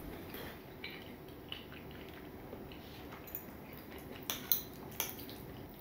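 A fork clinking and scraping against a ceramic gratin dish while spaghetti gratin is eaten: a few light, scattered clicks over quiet room tone, the loudest pair about four and a half seconds in.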